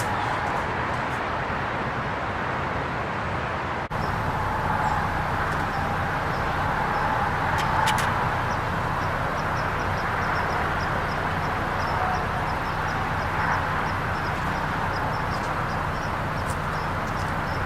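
Steady car running noise with a low hum, broken by a brief dropout about four seconds in.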